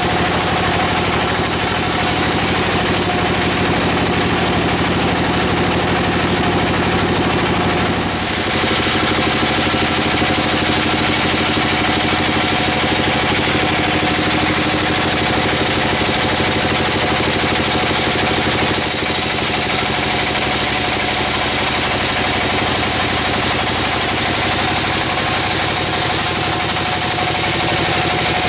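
Large band sawmill running steadily, a continuous machine drone with a hum under it. The low hum shifts abruptly about eight seconds in and the high hiss changes again about two-thirds of the way through.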